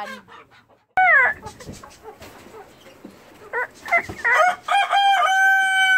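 A rooster crows: a run of rising calls that ends in one long held note. About a second before, a chicken in the flock gives a short call that falls in pitch.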